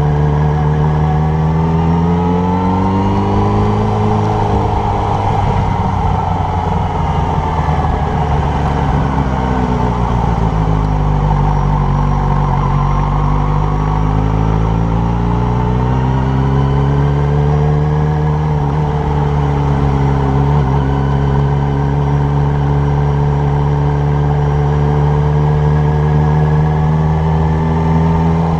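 Motorcycle engine running under way at low town speed, its pitch rising in the first few seconds, falling as it slows, then rising again and holding steady through the second half.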